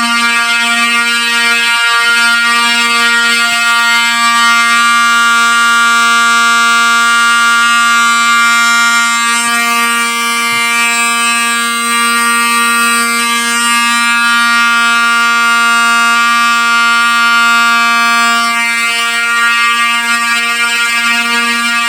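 Fire alarm horns, electromechanical horns among them, sounding together in one loud, unbroken buzzing tone. The tone is steady rather than pulsed because the panel is set to continuous signalling: the system is in full alarm after a pull station was activated.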